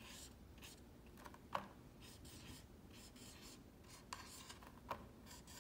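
Faint scratching strokes of a dry-erase marker writing on a whiteboard, with a few brief, sharper strokes.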